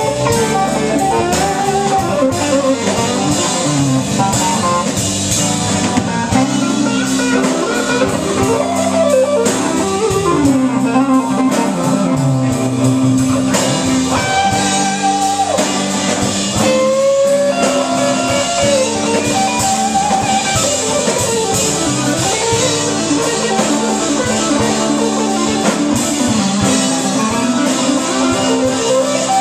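Live blues band playing a slow blues: an electric guitar solos with sliding, bent notes over a drum kit and steady lower accompaniment.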